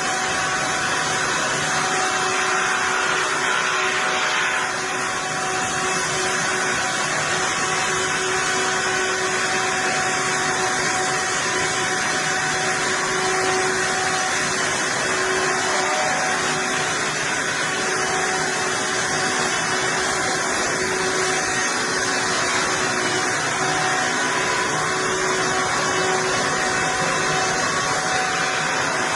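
Heavy wood-processing machinery running steadily: a loud, even mechanical noise with a faint steady hum, without pause.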